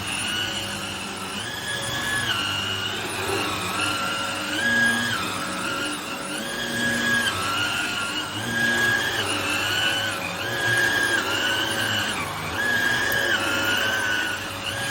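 Vax Air Lift 2 Pet upright vacuum cleaner running on thick-pile carpet with its brush agitator on, its motor whine stepping up and down in pitch about every second and a half over a steady hum.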